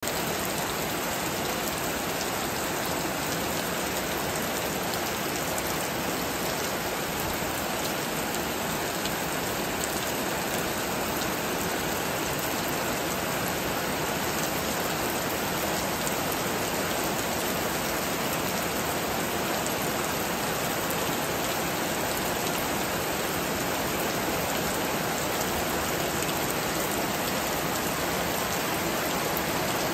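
Heavy rain falling steadily on banana leaves and grass, a dense, even hiss with no let-up.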